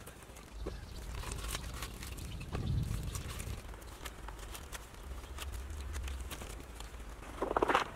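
Rope lashing being wound and pulled tight around the poles of a wooden frame: rustling and scraping of the cord with small creaks and knocks of wood, and a duller knock about a third of the way in. A short pitched call is heard near the end.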